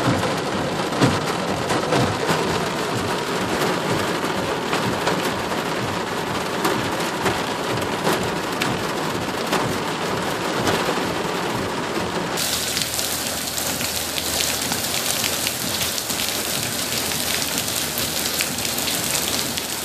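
Heavy rain pattering and drumming on a car's roof and windshield, heard from inside the cabin as a dense, steady hiss full of fine ticks. About twelve seconds in, the sound abruptly turns brighter and hissier.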